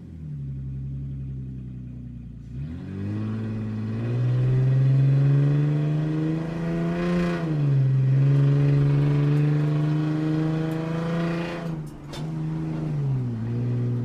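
Sports car engine pulling away: low at first, then the revs climb sharply about two and a half seconds in and hold. The engine pitch rises and falls back about seven seconds in, and dips again briefly near the end before picking up.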